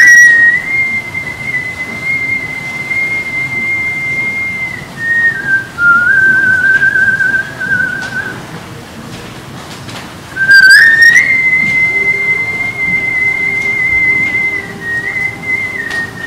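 A man whistling long held notes. A steady high note steps down to a lower, wavering one and breaks off about eight seconds in. About two seconds later the whistling starts again, gliding up into another long high note that dips slightly near the end.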